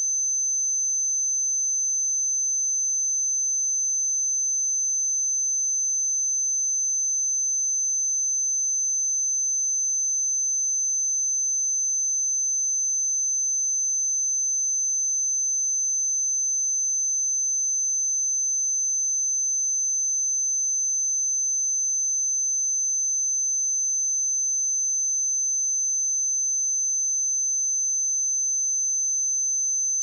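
A pure 6161 Hz sine-wave test tone: one steady high-pitched whistle, unchanging in pitch and level.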